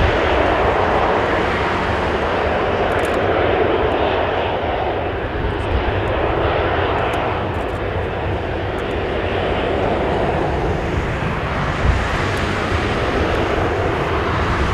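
Rolls-Royce Trent 900 jet engines of a taxiing Airbus A380-841 running at low thrust: a steady rushing jet noise with a low rumble, swelling and easing slightly.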